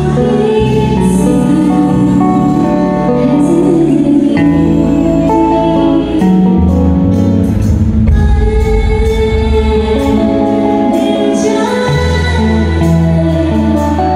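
A woman singing a song with a live band, amplified through stage speakers, over steady bass notes.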